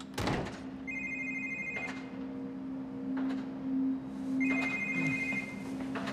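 Mobile phone ringing with an incoming call: two electronic ring bursts, each about a second long and a few seconds apart, over a steady low hum. A short thump comes right at the start.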